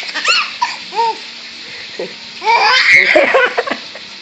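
A baby laughing in short, high-pitched squeals, breaking into a louder run of giggles about two and a half seconds in.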